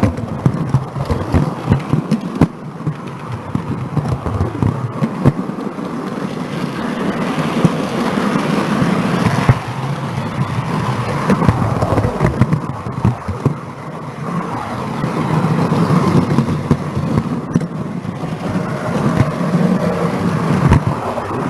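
Model railway train running on the layout, heard from the camera truck travelling with it: a continuous clattering rattle of wheels on the track, with many small clicks.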